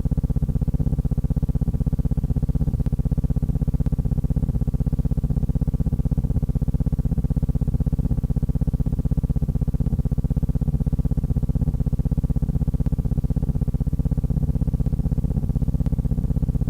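A steady low buzzing hum that does not change, with most of its energy in the bass.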